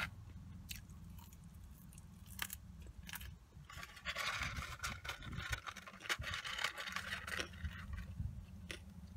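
Fingers rummaging and scraping inside a cardboard fast-food box, with scattered clicks and a longer rustling stretch in the middle.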